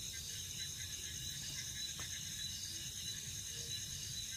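Steady night ambience: a continuous high-pitched chorus of crickets and other insects over a faint low rumble, with a single faint click about two seconds in.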